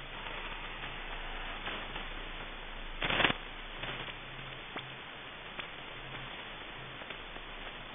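Shortwave receiver audio tuned near 5000 kHz: steady static hiss with crackles, a loud short crash about three seconds in, and a few sharp ticks afterwards.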